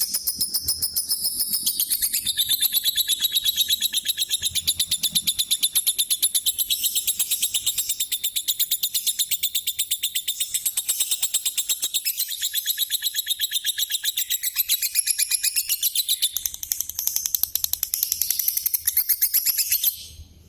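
Lovebird chattering: a fast, unbroken stream of high-pitched chirps, several a second, that stops just before the end.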